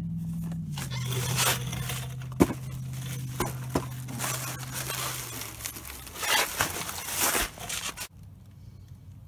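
Inflated plastic air-pillow packing crinkling and rustling as it is pulled out of a cardboard shipping box, with a few sharp clicks. A low steady hum runs under the first half, dropping in pitch about a second in.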